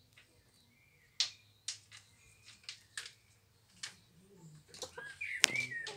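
Mostly quiet, with about eight scattered sharp taps and clicks and faint high bird chirps about a second in and near the end.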